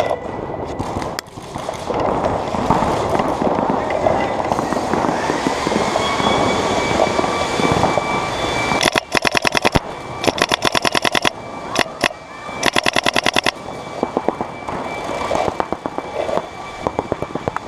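Electronic paintball marker, an Empire Vanquish 2.0, firing three rapid strings of shots, each about a dozen shots a second, starting about nine seconds in and ending about four and a half seconds later, with scattered single shots afterwards.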